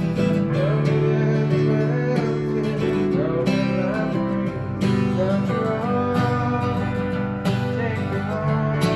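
Background music: plucked acoustic guitar playing a country-style tune.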